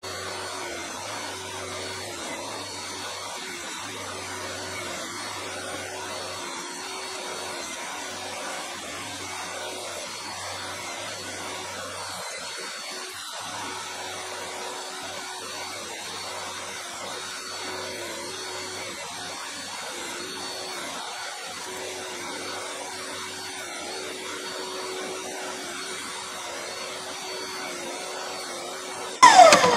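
Jobsite table saw running steadily. Near the end it is switched off, and its pitch falls quickly as the blade spins down.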